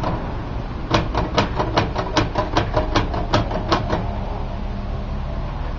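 L.C. Smith manual typewriter keys being struck in a quick run, about fifteen sharp typebar clacks at roughly five a second, stopping a little before four seconds in.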